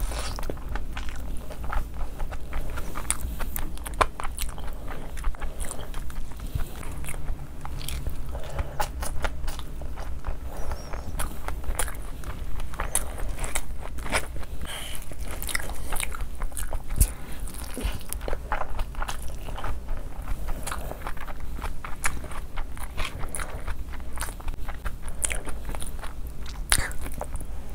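Chewing and biting of spicy chicken fried rice and gravy-coated chicken, eaten by hand. Many short mouth clicks follow one another.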